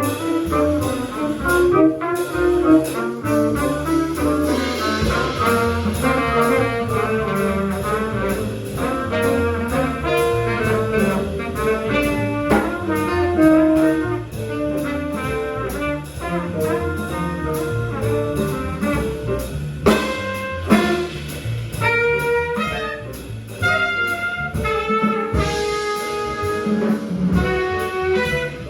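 A jazz band playing live: trumpet and tenor saxophone lines weaving over bass and drums, with cymbal strokes throughout.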